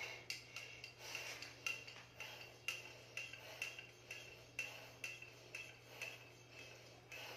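Light clicking and clinking of small hard objects, about two a second, irregular, over a low steady hum.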